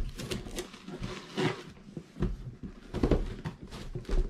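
Large cardboard box being handled and turned over on a table: rustling and scraping of cardboard broken by several knocks as it bumps the tabletop.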